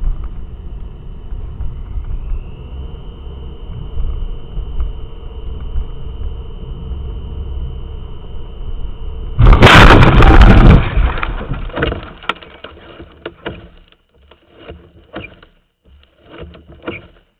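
Car road and engine noise heard from inside the cabin through a dashcam, then about nine and a half seconds in a loud crash of impact lasting about a second. Scattered clinks and knocks of debris follow as it dies down.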